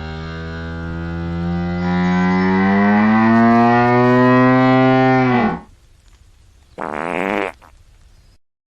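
Hippopotamus calling: one long, low call of about five and a half seconds, its pitch slowly rising before it stops suddenly. A short, harsher call follows about a second later.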